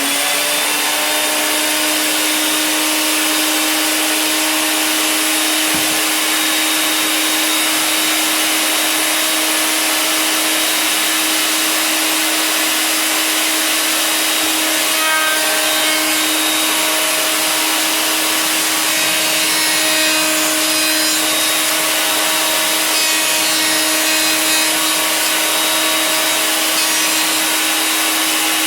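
A 1-3/4 HP Harbor Freight router running at full speed in a router table: a loud, steady motor whine with a constant tone. Wood is fed past the bit, a roundover, with slight shifts in the sound midway and toward the end.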